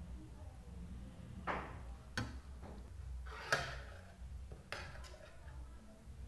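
Metal fork scraping and clinking against a ceramic plate while eating, a handful of short separate strokes with the loudest about halfway through.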